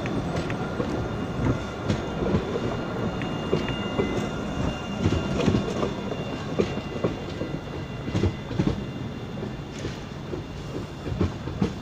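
Articulated tram rolling past at low speed, its wheels knocking and clicking irregularly over the points and rail joints of the trackwork, over a steady rolling rumble. A thin high whine fades out within the first few seconds.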